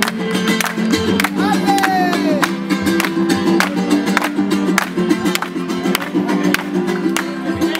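Acoustic guitars strummed in a steady rhythm during a song's instrumental passage, with a short falling wordless vocal glide about two seconds in.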